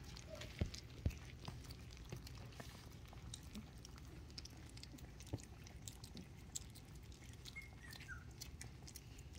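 Australian Shepherd puppies lapping and chewing soft mash off a paper plate at weaning: a steady run of small wet clicks and smacks, with two louder knocks in the first second or so.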